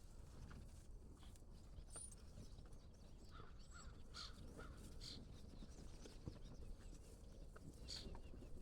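Near silence: faint outdoor ambience with a low rumble and a few brief, distant bird calls.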